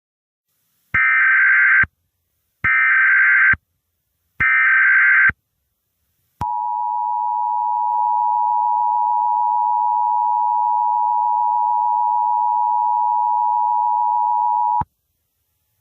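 Emergency Alert System broadcast header: three bursts of SAME data tones, each about a second long, followed by the EAS attention signal, a steady dual-tone beep held for about eight seconds that cuts off suddenly. It marks the start of an emergency alert message.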